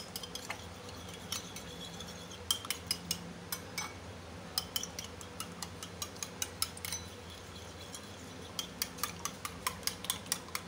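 Two raw eggs being whisked by hand with a metal utensil in a ceramic bowl: quick, irregular clinks of metal against the bowl, coming in bursts.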